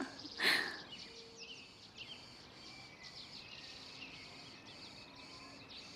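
Small birds chirping over a quiet garden ambience, with a short breathy sound about half a second in.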